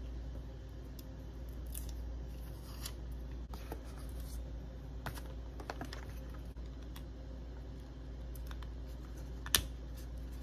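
A clear plastic protective case being handled and pressed onto an Apple Watch: scattered small plastic clicks and taps, then one sharp snap about nine and a half seconds in as the case seats on the watch.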